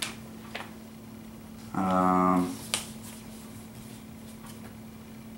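A few small clicks and rustles of hands handling paper and parts, with a short hummed "hmm" about two seconds in and a sharp tick a moment later, over a steady low electrical hum.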